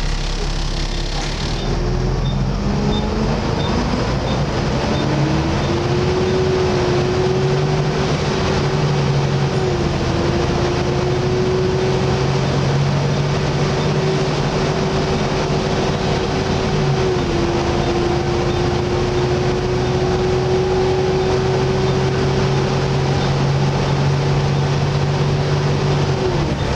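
Volvo B7TL bus engine and drivetrain pulling hard, with the loud 'hoover' whine. The whine climbs for a few seconds, then holds, dipping slightly about 10 and 17 seconds in as the automatic gearbox changes gear.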